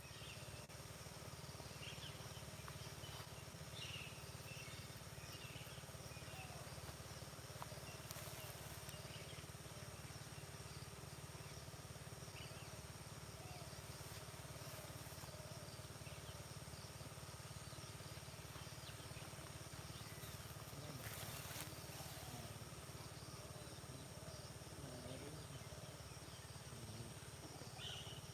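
Faint rural field ambience: a steady high insect drone and scattered short bird chirps over a low rumble. A brief hiss of noise comes around 8 seconds in and again around 21 seconds.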